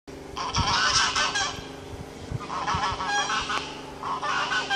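Geese honking in three bouts of rapid repeated calls, over a steady low hum.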